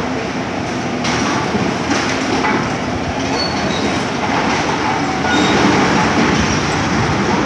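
Building demolition: a continuous loud rumble and clatter of debris and machinery, with a few brief high-pitched squeals, like metal scraping, in the middle.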